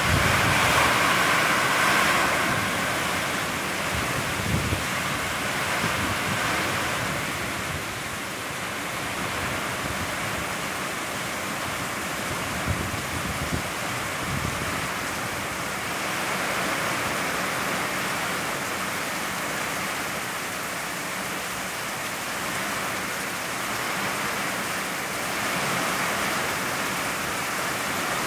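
Heavy rainstorm pouring down, a dense steady hiss that swells and eases in waves, heaviest in the first couple of seconds. A couple of brief knocks stand out, about four seconds in and again around thirteen seconds.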